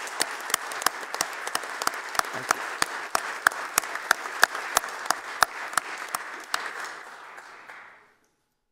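A chamber full of people applauding, with one nearby clapper standing out in sharp, even claps about three a second. The applause fades and dies away near the end.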